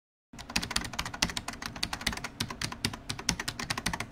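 Computer keyboard typing: a fast, uneven run of key clicks starting a moment in, used as a sound effect over an opening title animation.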